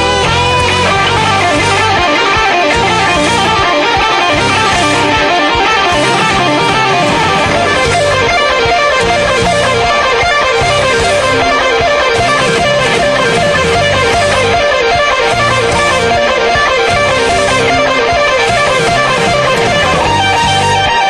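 Background music: a rock track led by fast-picked electric guitar.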